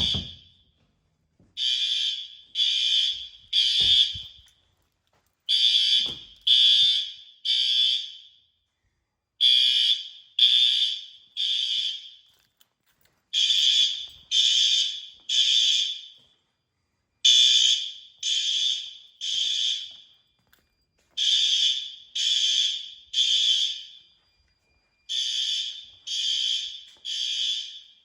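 Fire alarm horns sounding the temporal-three evacuation pattern: three short buzzing blasts, then a pause, repeating about every four seconds. The horns are System Sensor L-Series horn strobes on a Fire-Lite ES-50X panel, in alarm during a system test.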